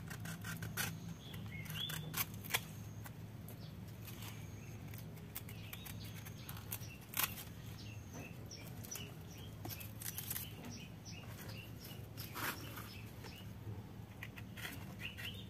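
Scattered clicks and rustles of hands handling a young coconut palm bonsai and cutting at it with a small knife, with birds chirping at intervals and a low steady hum underneath.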